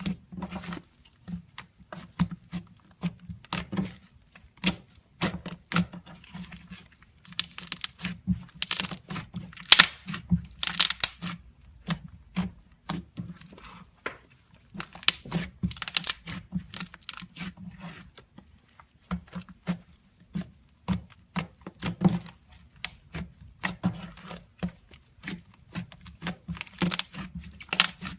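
Slime being worked for ASMR, giving an irregular run of sharp pops and crackles, with louder bursts now and then.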